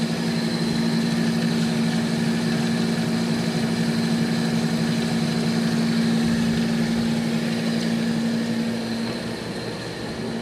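Gardner 2V18-18 vertical double-end disc grinder running: a steady machine hum with a strong, unchanging low tone, easing slightly near the end.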